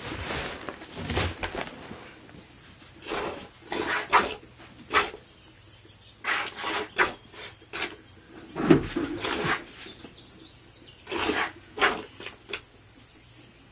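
Hand-milking a Saanen goat: milk squirting into the pail in short hissing spurts, one per squeeze, coming in runs of a few strokes with brief pauses between.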